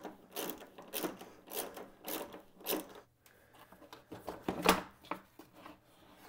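Socket ratchet clicking in quick strokes, about two a second, as bolts on a plastic radiator fan shroud are worked loose. This is followed about four and a half seconds in by a louder plastic clatter and knock as the upper fan shroud is pulled free.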